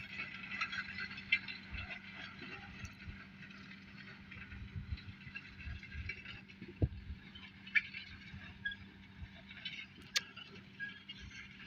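Tractor engine running steadily at a distance, a low even hum, with scattered clicks and rattles over it.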